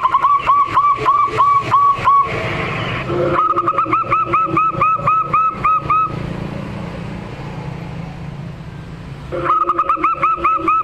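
Zebra dove (local perkutut) calling in quick runs of repeated notes, about four to five a second, over a low steady hum. The runs break off about two seconds in, come again from about three and a half to six seconds, and start once more near the end.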